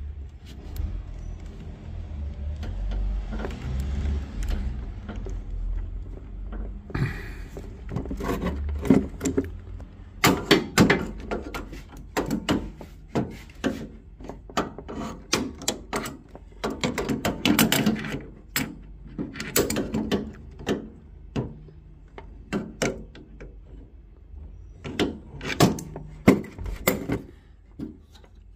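Hands and tools fitting and tightening a new brass automatic air vent on a boiler's circulating pump. A low rumble for about the first seven seconds, then a long run of irregular metal clicks, knocks and taps.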